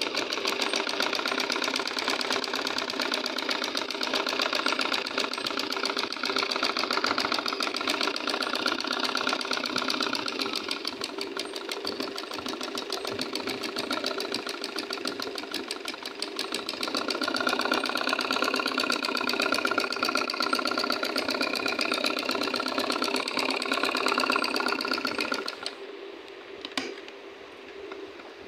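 Domestic straight-stitch sewing machine running fast, its needle clattering in a rapid, steady rhythm as it stitches through cotton fabric. It stops near the end, followed by a few light clicks.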